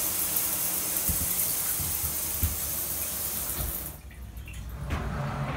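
Shower head spraying water into a shower stall at full flow, from a valve that is either fully on or fully off. The spray cuts off suddenly about four seconds in.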